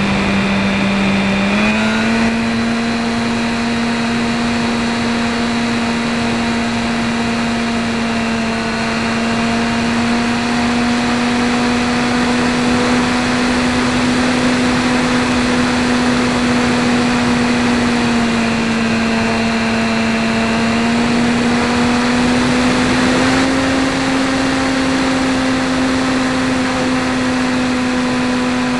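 E-flite 450 brushless electric motor (860 kV) spinning a 10x5 propeller on a model airplane in flight, a steady motor-and-prop hum with wind noise rushing over it. The pitch rises slightly about two seconds in, sags a little about two-thirds of the way through, then rises again as the throttle changes.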